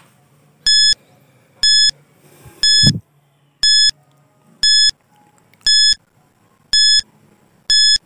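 Countdown timer sound effect beeping once a second: eight short, identical electronic beeps, each a bright high tone.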